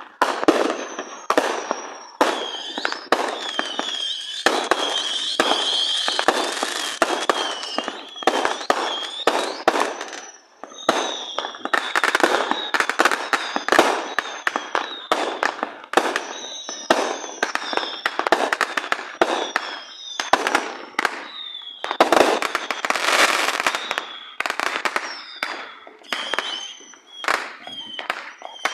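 Fireworks going off in quick succession: a dense run of sharp bangs and pops, with high warbling whistles threading through. Two longer crackling stretches come about five seconds in and again later on.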